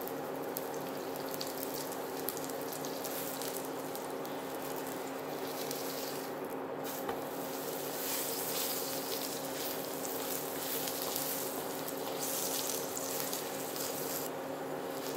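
Paratha frying in oil on a flat griddle, a steady sizzle with crackling that grows louder about halfway through, after the paratha is turned over. A steady low hum runs underneath.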